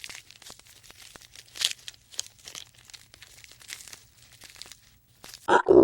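Irregular crackling and tearing sounds, then a short, loud animal call with a clear pitch near the end.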